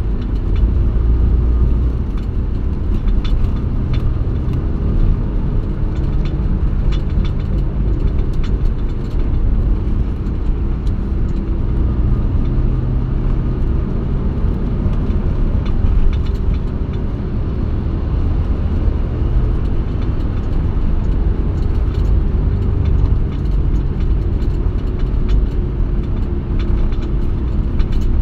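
A car driving along a road, heard from inside its cabin: a steady low rumble of engine and tyre noise.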